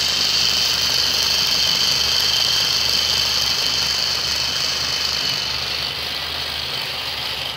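Small electric motor with a fan propeller, spinning a miniature universal-joint drive shaft and toy wheels. It runs with a steady high whine over a rattling hum, fading slightly near the end.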